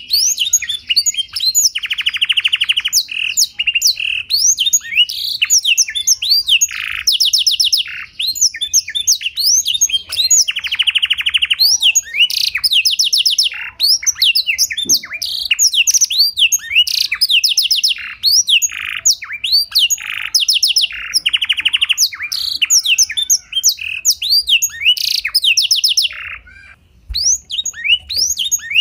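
Domestic canary singing continuously, a clear song of quick rising and falling whistles broken by rapid buzzy trills. The song is filled with phrases copied from the blackthroat, sung as a master song for other canaries to learn.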